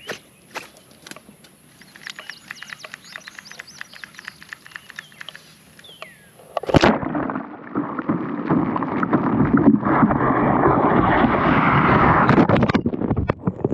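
Faint outdoor sound with small clicks and a few bird chirps. About seven seconds in comes a sudden splash as the camera falls off the front of the kayak into the water. Loud, muffled rushing of water over the submerged microphone follows.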